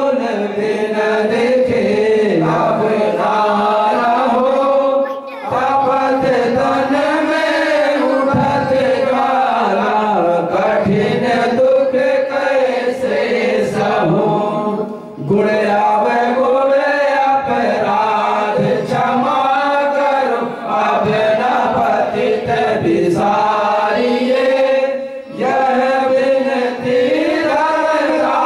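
A group of men chanting a devotional aarti together in unison, with short pauses for breath about every ten seconds.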